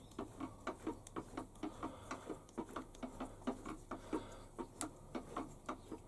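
Fast, steady mechanical ticking, about six sharp ticks a second.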